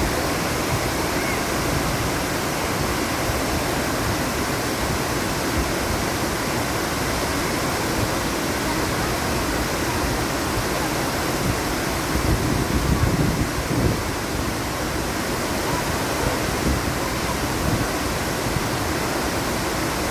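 Steady rushing noise of a waterfall, with low rumbling swells about twelve seconds in from wind on the microphone.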